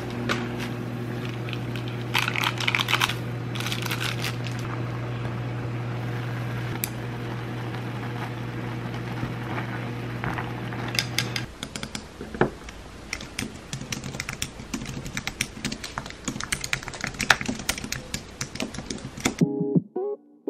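Water boiling in a pot of instant ramen under a steady low hum, with a few clinks. About eleven seconds in the hum stops and quick clicks of typing on a computer keyboard follow.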